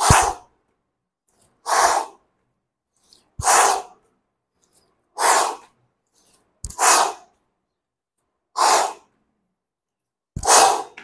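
A man breathing out hard through the mouth, seven separate exhalations about every second and a half to two seconds, paced to slow plank shoulder taps. A few of them open with a brief low thump.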